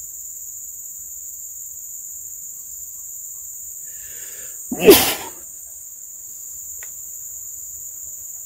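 Steady high-pitched chorus of insects in the forest, with one loud sneeze from a person about five seconds in, after a short breath in.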